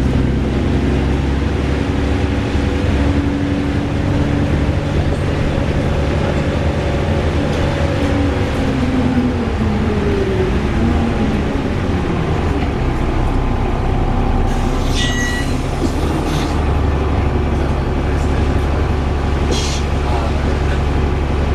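VDL DB300 double-decker bus running on board, its engine and driveline giving a steady whirring drone. About halfway through, a whine slides down in pitch as the bus slows. A brief high tone comes a little later, and a short hiss comes near the end.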